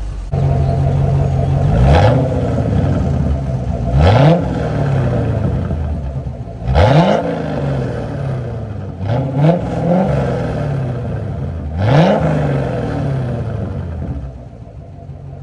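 1991 Corvette C4's L98 5.7-litre V8 running through a rear muffler delete, idling and blipped by hand. The revs shoot up and fall back to idle about every two to three seconds, five times in all, with a quick double blip near the middle. It settles to a quieter idle near the end.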